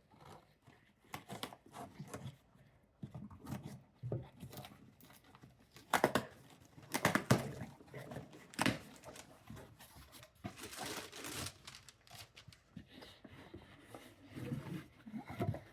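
Packaging being handled and torn open by hand: irregular ripping and crinkling of a package's wrapping, loudest from about six to nine seconds in.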